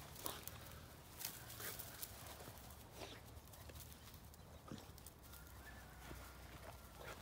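Faint scuffling of two American Staffordshire terriers play-wrestling on grass: scattered short clicks and knocks about a second apart, over a low steady rumble.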